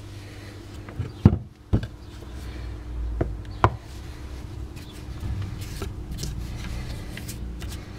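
Cast-iron Myford lathe sliding table being handled on its wooden block: a cluster of three sharp knocks about a second in, two more at around three and a half seconds, then softer rubbing and handling noise.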